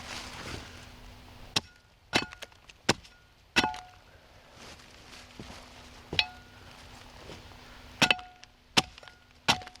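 Broad axe hewing a split log: about eight chopping strikes at uneven intervals, several followed by a brief metallic ring.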